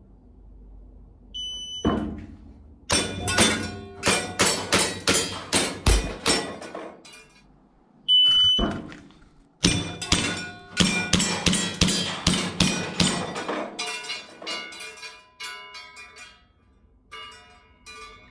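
Two IPSC-style strings of airsoft BB pistol fire: a shot-timer beep, then a quick run of sharp shots with BBs striking steel targets that ring. This happens twice, the second string longer and slowing toward the end.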